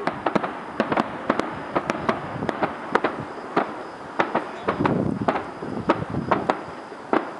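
Aerial fireworks bursting: an irregular run of sharp bangs and pops, several a second, growing denser about five seconds in.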